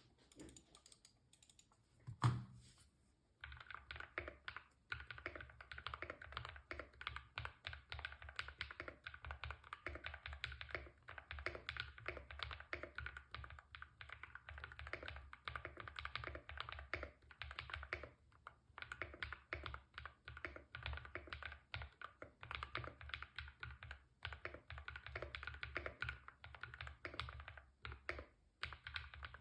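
Typing on a custom 60% mechanical keyboard: a single knock about two seconds in, then fast, continuous key clicks.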